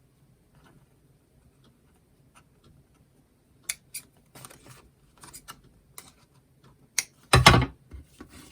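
Scissors snipping ribbon or card in a few short, sharp cuts with small clicks, followed by a louder knock near the end.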